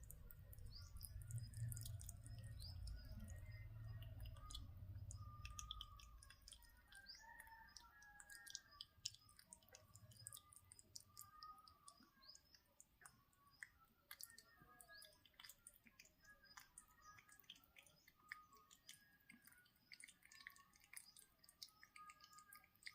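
A rabbit chewing rice and lentils: faint, quick clicks of small bites and nibbling, with faint bird chirps in the background. A low rumble runs under the first few seconds, then stops.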